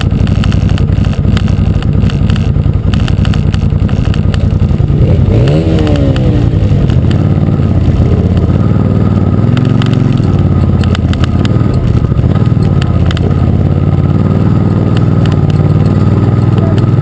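Arctic Cat Wildcat UTV engine running under load on rough off-road terrain, rising in pitch about five seconds in, with frequent clatter and knocks from the vehicle bouncing over the ground.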